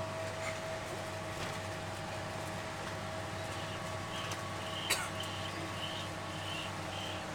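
Bus cabin noise: a steady low hum of the bus on the move, with a sharp click about five seconds in and a run of short high chirps over the last few seconds.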